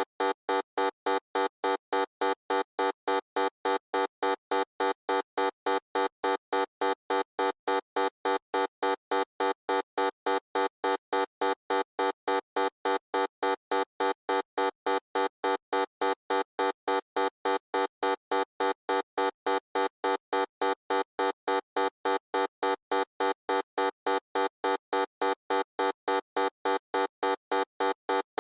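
Loud electronic buzzer tone pulsing on and off in an even, unbroken rhythm, about two to three times a second.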